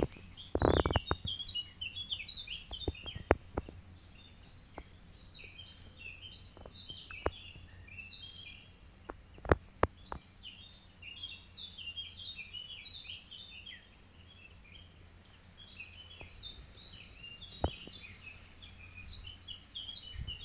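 Small songbirds chirping and twittering steadily in the background, over a low outdoor hum. A few sharp clicks and rustles stand out, the loudest about a second in, around three seconds in and near the middle.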